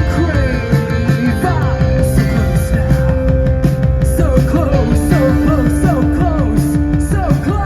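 Post-punk band playing live: drums with regular cymbal hits, a driving bass line and long held notes over it, heard loud through a phone-style concert recording.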